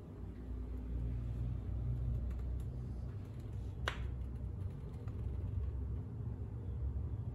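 A 125cc pit bike engine idling with a steady, low, even running sound. There is one sharp click about four seconds in.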